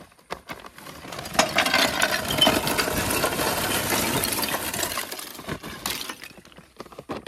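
Lumps of charcoal clattering and crunching as a grill is loaded, a dense rattle of many small hard pieces that builds about a second in and tapers off near the end.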